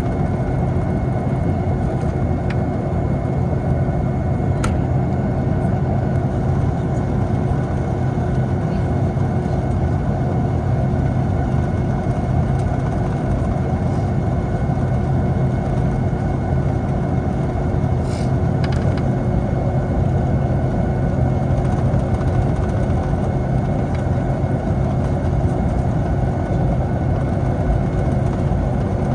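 Steady engine and airflow noise inside the cabin of a Boeing 757, with a constant low hum that neither rises nor falls, and a couple of faint clicks.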